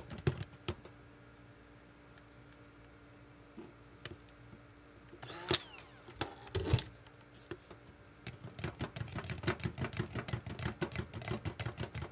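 Stick blender's metal shaft stirring thick, cooking hot-process soap batter in a slow-cooker crock, making quick clacks and squelches. The stirring pauses for a few seconds with only a faint steady hum underneath, two sharp knocks come about halfway through, and then the rapid stirring resumes.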